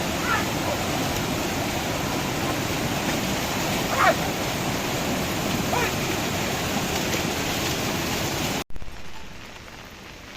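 Steady loud rush of heavy rain and running water. About eight and a half seconds in it cuts off abruptly to a much quieter, softer rain sound.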